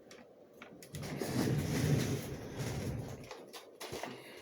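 Handling noise: a rustling scrape that lasts about two seconds, then a few light clicks, as a plastic toy blaster is picked up and moved about.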